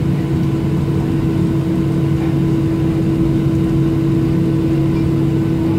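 Inside the cabin of a taxiing Boeing 737-700, its CFM56-7B jet engines running at idle: a steady droning hum with two held low tones over an even rush of noise.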